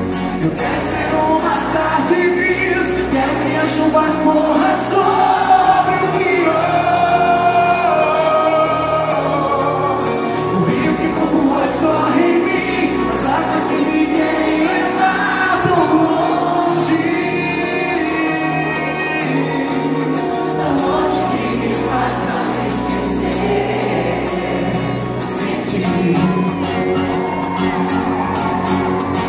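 Live band music with singing throughout, acoustic guitars and a steady drum beat under the vocals, heard from the audience through the hall's PA.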